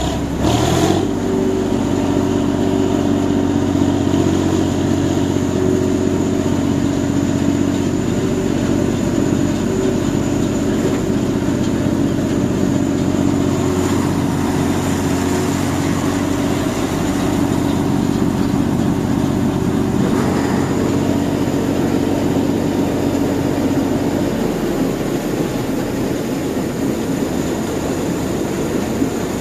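Rice combine harvester's engine running steadily under load. About three-quarters of the way through, the deep hum drops out and the sound turns rougher.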